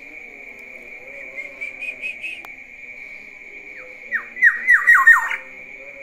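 Caged black-naped oriole (kepodang) calling: a few soft short notes, then about four seconds in a quick run of about six loud downward-slurred notes.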